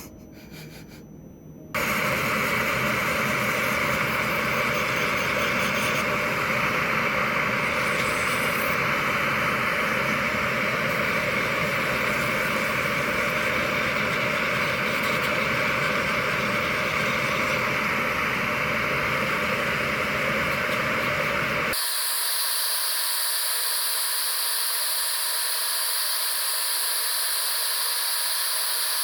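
Loud, steady mechanical hiss from a machine. It starts suddenly about two seconds in, and about twenty seconds in it changes abruptly to a thinner, higher hiss with the low end gone.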